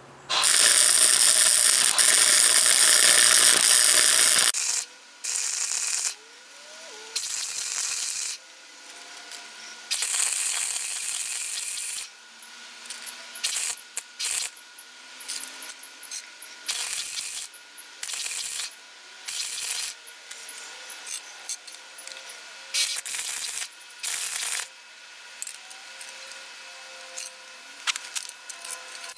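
Electric arc welder hissing and crackling as tack welds are laid on a thin sheet-metal ring: one long weld of about four seconds, then a string of shorter welds of a second or two with pauses between.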